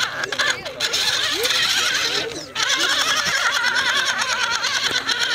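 Electric motor and drivetrain of a 1/10-scale RC crawler truck whining under load as it climbs over rocks. The pitch wavers with the throttle, and it cuts out briefly about halfway through before picking up again.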